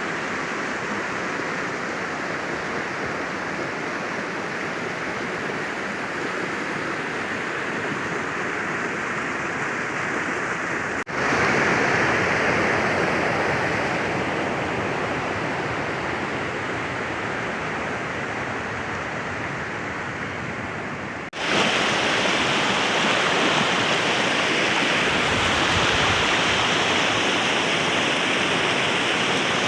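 Steady rush of a fast-flowing mountain creek swollen with snowmelt. The sound breaks off abruptly twice, about a third of the way in and again about two-thirds in, coming back louder each time.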